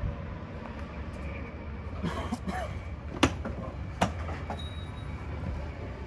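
Footsteps climbing a travel trailer's folding metal entry steps, with two sharp knocks about three and four seconds in, over a steady low outdoor rumble.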